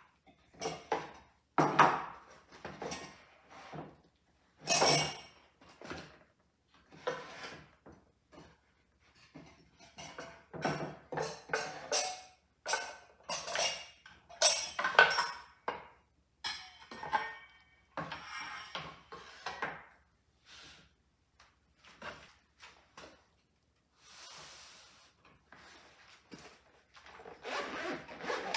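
Wooden parts of a handmade camp coffee box being handled: a run of knocks, taps, clinks and rubs as pieces are lifted out and set down on a wooden table. Near the end comes a softer rustling as a fabric case is handled.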